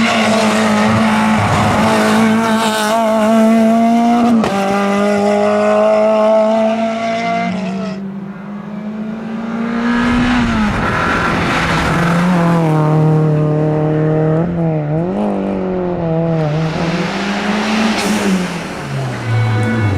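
Rally car engine at high revs, its pitch rising and falling with gear changes and braking. It fades about eight seconds in, then an engine rises again and works up and down through the gears.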